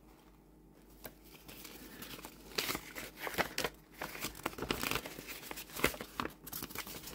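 Paper packaging crinkling and rustling inside a cardboard box, starting about a second in and going on as a run of short, uneven crackles.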